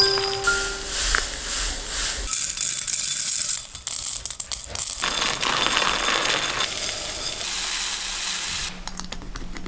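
Dry seeds and grains, among them flaxseed, poured into glass jars: a dense rattling hiss as they stream in and strike the glass, shifting every couple of seconds in several pours.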